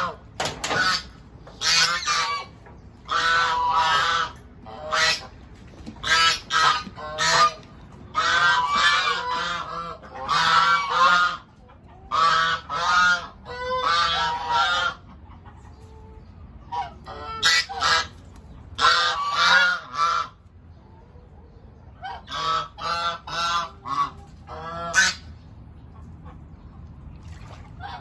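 Domestic Chinese geese honking in rapid bouts of loud, repeated calls, several birds at once, with short lulls between bouts.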